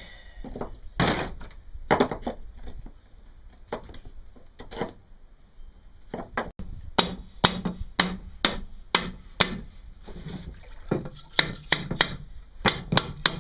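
A series of sharp knocks from parts of a boat's propeller-shaft assembly being knocked into place. They come irregularly at first, then steadily at about two a second from about seven seconds in.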